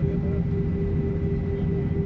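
Airbus A320 cabin noise with the engines idling, heard from a window seat over the wing: a steady low rumble under a steady hum and a fainter high whine.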